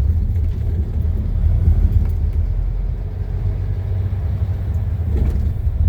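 Dump truck's diesel engine running with a steady low rumble.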